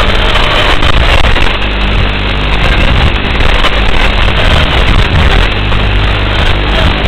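Tiny whoop drone's 6x17 mm brushed motors, 25000 kV, buzzing steadily in flight.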